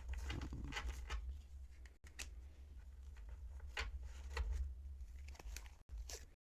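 Thick linen-cardstock tarot cards being handled and laid out: about half a dozen light snaps and slides of card on card, spread a second or so apart, over a low steady hum.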